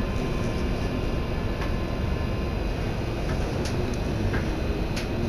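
Steady interior noise of a Z 20900 RER commuter train standing at an underground platform, its onboard equipment running, with a few faint clicks.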